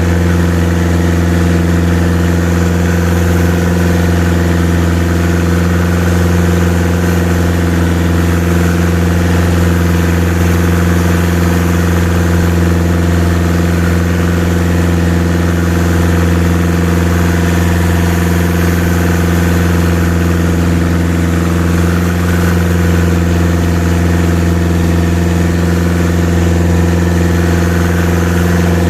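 A boat's engine running at a steady, even speed with a deep, loud hum, with a constant wash of water and wind noise over it.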